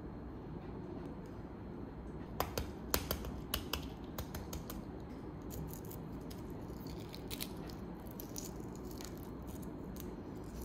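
Hard-boiled eggshell cracking and being peeled off by hand: a quick run of sharp crackles a couple of seconds in, then scattered lighter crackles of shell breaking and pieces dropping onto the table.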